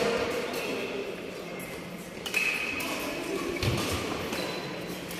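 Badminton rally in a large hall: rackets strike the shuttlecock with sharp clicks, a few times, with short high squeaks of shoes on the court between hits.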